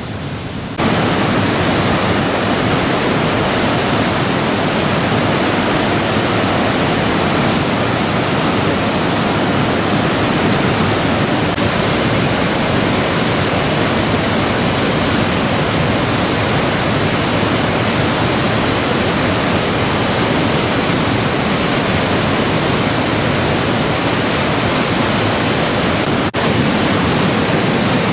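Whitewater rapids of a mountain river rushing through a limestone gorge: a steady, loud rush of water that grows louder about a second in.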